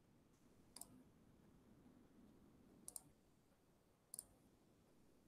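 Near silence broken by three faint, sharp clicks, about one, three and four seconds in; the second and third are quick double clicks.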